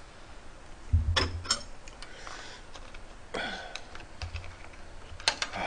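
Chopsticks clicking and scraping against a cooked crab shell while the roe and innards are picked out, with a couple of dull thumps and a short murmur.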